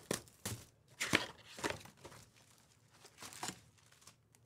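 Plastic wrapping crinkling and tearing in several short rustles, the loudest about a second in, as a hobby box of Panini Select football card packs is unwrapped and opened.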